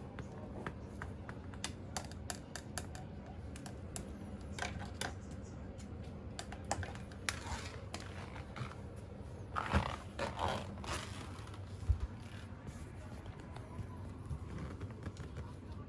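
Cats crunching dry food: scattered small clicks and scrapes over a steady low hum, with a louder patch about ten seconds in.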